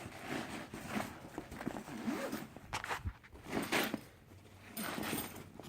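Zipper on a large Craftsman fabric tool bag being worked open in short, uneven pulls, with rustling and handling of the bag.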